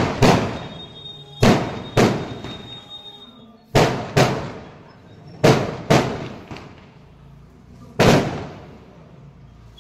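Fireworks going off: about nine loud, sharp bangs, mostly in pairs about half a second apart, each followed by an echoing tail.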